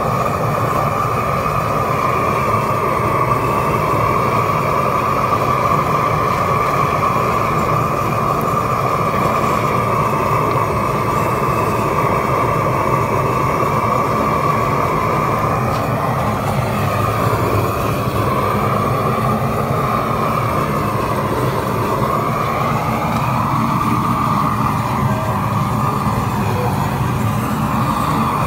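Propane roofing torch burning steadily: a loud, continuous rushing of the flame, its tone wavering slightly in the second half as the torch is moved over the wet pavers.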